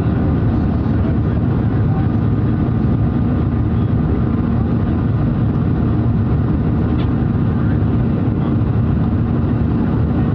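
Steady cabin noise of a Boeing 737-700 in its climb after takeoff: its CFM56-7B turbofan engines running and the rush of air past the fuselage, heard from inside the cabin. The noise is low-pitched and even, with no change in level.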